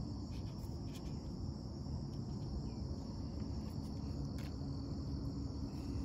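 Steady high-pitched chirring of insects in the background, with a few faint taps and rustles as a booklet and wallet are handled and set into a watch box.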